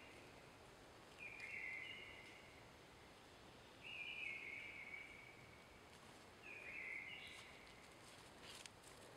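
A wild animal's high, buzzy call, repeated three times about every two and a half seconds, each call lasting about a second. A few faint clicks near the end.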